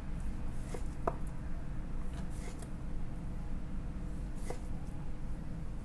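Long slicing knife cutting sashimi slices from a tuna loin, its edge tapping the wooden cutting board at the end of the cuts: about five short clicks over a steady low hum.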